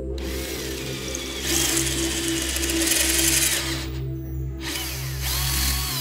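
Cordless drill boring through a flat metal bracket held in a vise: a long run of drilling that swells in the middle and stops, then a second, shorter run about a second later, the motor's pitch rising and falling as it spins up and down. Background music with a steady bass lies underneath.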